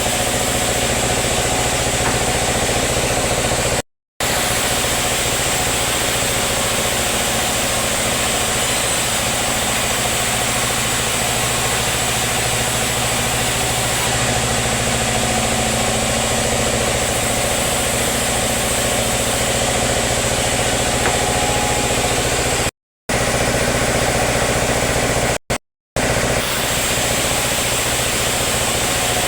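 Sawmill machinery running with a steady, unbroken drone. It cuts out to silence for a moment three times.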